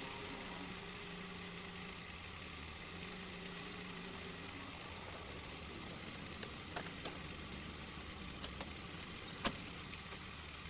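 A vehicle engine idling steadily, with a few sharp clicks in the second half.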